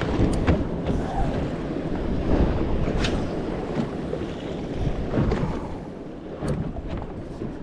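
Wind buffeting the microphone over the lap and slap of small waves against a small boat's hull, with a few sharp clicks.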